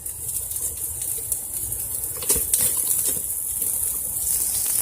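Chopped onions frying in oil in a hot pan, a steady sizzle, with a few light clicks about halfway through.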